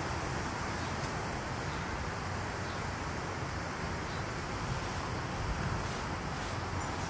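Steady ambient noise: an even rumble and hiss with no distinct events.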